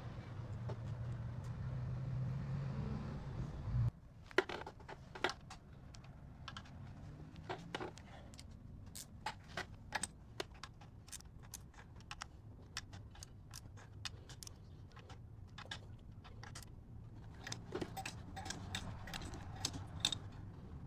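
A steady low hum that cuts off abruptly about four seconds in, followed by many short, sharp metallic clicks and taps of small metal parts and tools being handled on a workbench.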